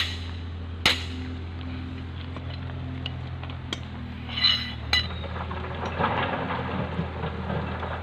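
Steel reinforcement bars clinking and knocking as they are handled and set in place: several sharp metallic knocks, one ringing briefly about halfway through, over a steady low hum.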